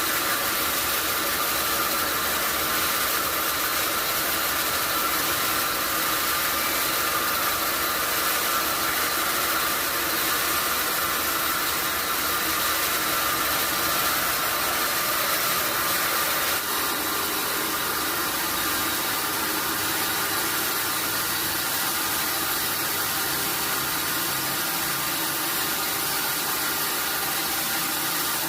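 Sawmill sawing machine running steadily with a loud, even whirring noise and a constant whine, easing slightly a little past halfway.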